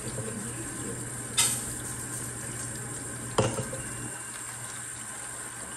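Kitchen faucet running steadily into a bowl of cloudy water as rice is rinsed, with two sharp knocks about two seconds apart.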